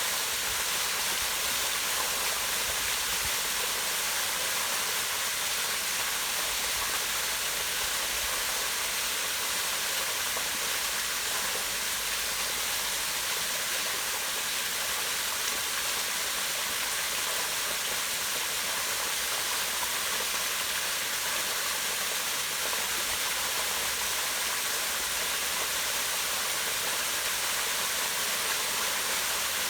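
Small waterfall pouring down a rock face into a pond: a steady, unbroken rush of falling and splashing water.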